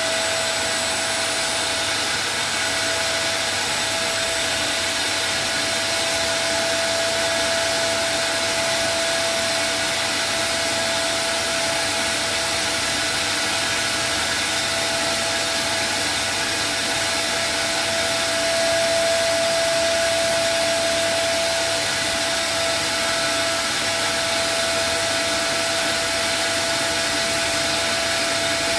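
Wet/dry vacuum cleaner running steadily, with a held motor whine over the rush of air, pulling the wrap film down tight over a steering-wheel part.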